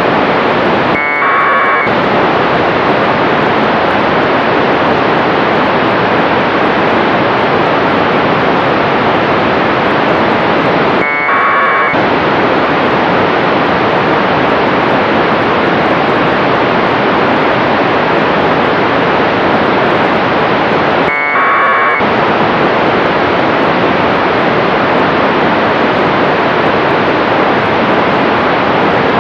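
Radio receiver static from the NanoSail-D2 CubeSat's telemetry beacon: a steady loud hiss, broken three times about ten seconds apart by a short warbling data burst of under a second, during which the hiss drops out.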